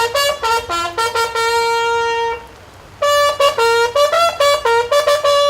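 A solo trumpet sounds a ceremonial flag-raising call in two phrases of short notes. Each phrase ends on a long held note, the second running on past the end.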